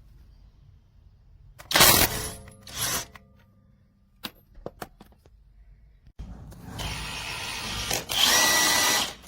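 Cordless impact wrench running in short bursts: two brief loud bursts about two seconds in, a few clicks, then a longer run from about six seconds in that gets louder near the end and stops briefly just before it.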